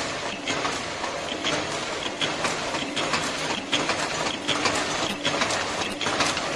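Fully automatic servo-motor face mask machine running: a steady mechanical clatter with a sharp click repeating a little more than once a second.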